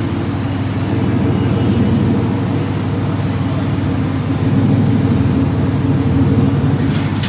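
Ford Mustang GT's 5.0 Coyote V8 running at a steady idle, loud through a race X-pipe with dump-style exits and essentially no mufflers.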